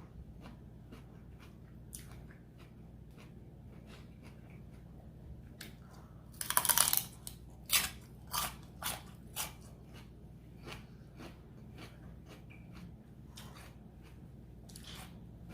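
A person biting into and chewing crunchy raw vegetables close to the microphone: scattered small crunches, one loud bite a little under halfway through, then four crisp chewing crunches about half a second apart.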